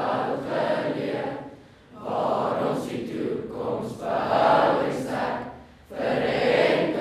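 A large group of voices singing together in long phrases, with two short breaks between phrases, about two seconds in and just before six seconds.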